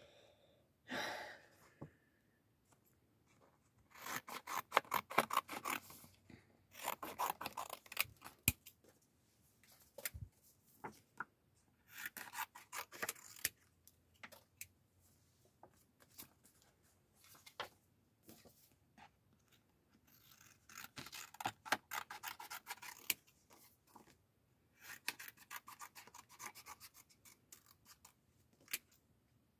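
Scissors cutting a printed photo: about five short runs of quick snips, with pauses between them.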